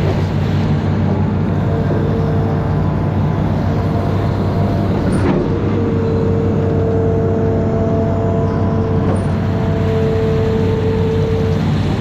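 Amphibious excavator's diesel engine running steadily under load, with a steady higher whine that drops out briefly now and then. A sharp knock comes about five seconds in.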